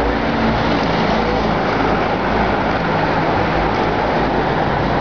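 Steady city street traffic noise, an even hum of passing vehicles, with faint far-off voices under it.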